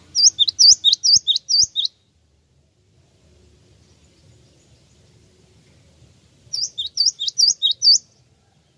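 Cinereous tit (gelatik wingko) singing two short phrases of high, sharp, repeated notes, about four a second. One phrase comes just after the start and the other near the end, with a pause of several seconds between.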